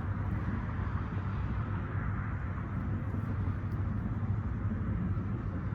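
A steady low mechanical hum with a broad rushing noise over it, as of a motor running without change.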